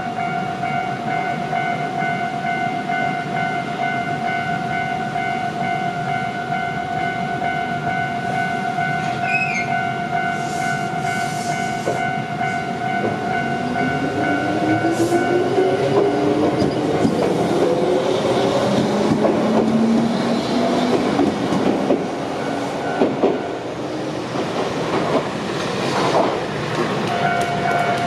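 Japanese level-crossing warning bell ringing in rapid pulses. About halfway through, a Shizuoka Railway electric train accelerates through the station crossing, its motors whining upward in pitch over the rumble of its wheels. The bell fades during the train's run, then rings out loudly again near the end.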